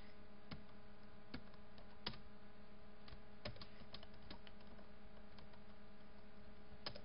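Computer keyboard keys tapped now and then, about eight separate clicks at irregular intervals, over a steady low electrical hum.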